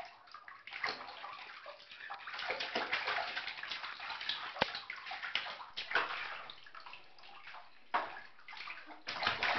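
Shallow bathwater splashing and sloshing in a tub as a toddler slaps at it with his hands, in irregular bursts that come and go.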